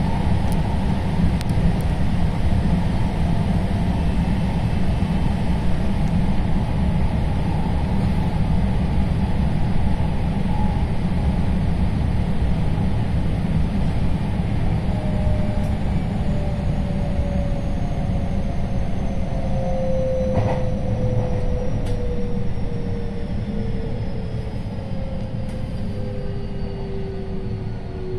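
Running noise of a JR West 223-series electric train heard from inside the carriage: a steady rumble of wheels on the rails. From about halfway, the traction motor whine falls steadily in pitch as the train brakes into a station.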